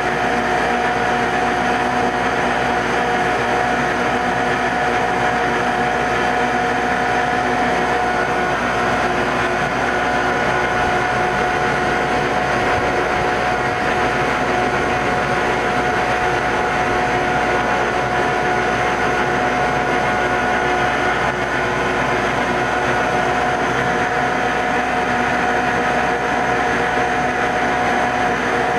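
Metal-cutting machine tool running steadily while machining a spherical seat on a locomotive throttle part: a continuous mechanical drone with a steady whine over it.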